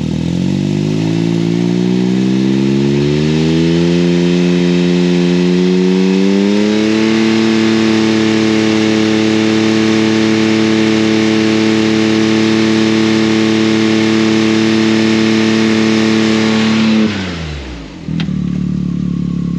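Can-Am Maverick X3's turbocharged three-cylinder engine, breathing through an aftermarket side exhaust, revved up smoothly from idle over several seconds and held at a steady high rpm for a sound-level test. Near the end the throttle is released and it drops quickly back to idle, with a single click just after.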